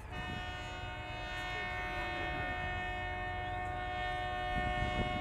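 A boat's horn sounding one long, steady blast of about five seconds: a chord of several tones, over a low rumble.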